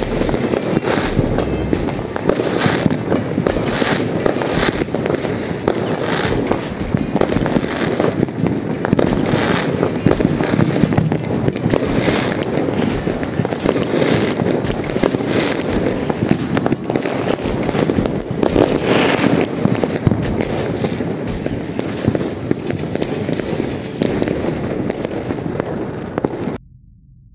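Many fireworks going off at once: a dense, continuous crackle of bangs with louder reports every second or so, cutting off suddenly near the end.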